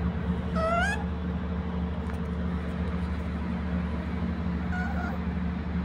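A steady low mechanical hum, like a running engine, under the whole clip. Over it come a short, rising, squeaky cry from a young animal about half a second in and a shorter, fainter one near the end.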